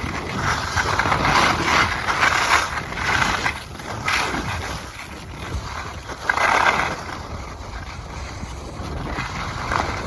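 Skis sliding and scraping over packed snow, with wind rushing over the microphone. The noise swells and fades in surges as the skier moves, loudest about six and a half seconds in.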